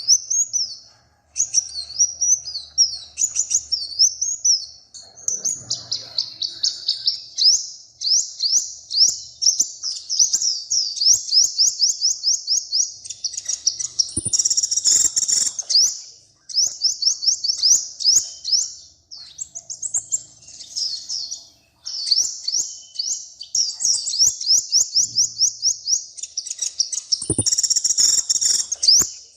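A small songbird singing a long, rapid series of high chirps and trills with brief pauses, twice breaking into a louder, harsher burst.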